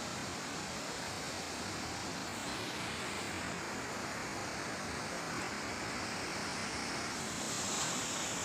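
Steady rushing of floodwater, an even roar with no breaks.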